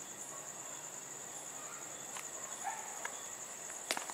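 Crickets chirring steadily in a high-pitched drone, with a couple of sharp clicks near the end.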